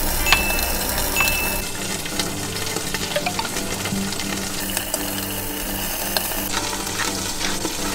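Ceramic knife slicing through a tomato onto a wooden cutting board, with a few sharp taps in the first second or so and small handling ticks later, over a steady sizzling hiss and soft background music.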